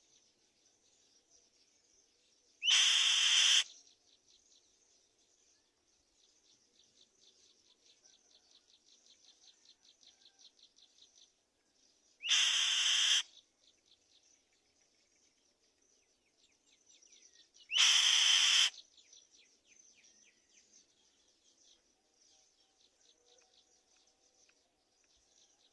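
Black-winged kite giving three loud, harsh screeches, each just under a second long, several seconds apart. Underneath runs a faint, continuous, high chittering of rapid ticks.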